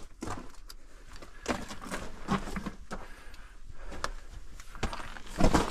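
Footsteps crunching and scuffing on loose rock and gravel at a walking pace, with a louder scrape near the end.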